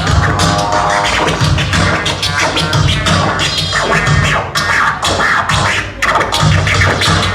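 Loud DJ music with a heavy beat and turntable scratching over it.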